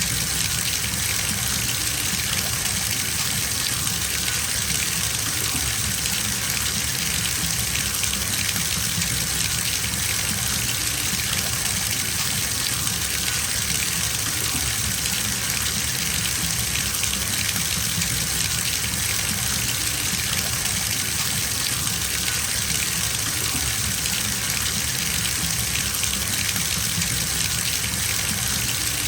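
Bathtub filling from a running tap: a steady gush of water pouring into the tub, even and unchanging.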